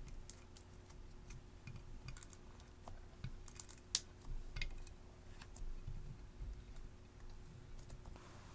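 Clear slime being squished and stretched by hand, making irregular small sticky clicks and pops.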